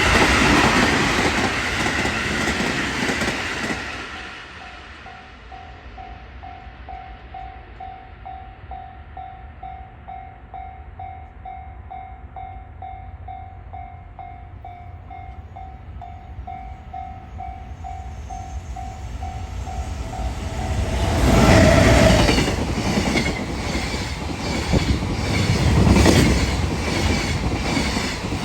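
A train passes close by and dies away over the first few seconds. A level-crossing warning bell then rings steadily at about two strokes a second. Near the end another train arrives and passes loudly, its wheels clicking rhythmically over the rail joints.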